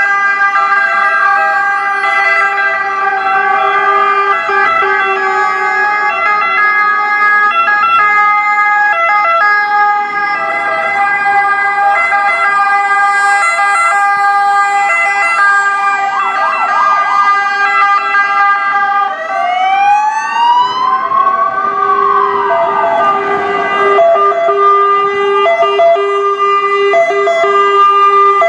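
Several ambulance and emergency-car sirens sounding together as a convoy passes: overlapping two-tone sirens switching steadily between their notes. A slow wailing siren that rises and falls joins about two-thirds of the way through.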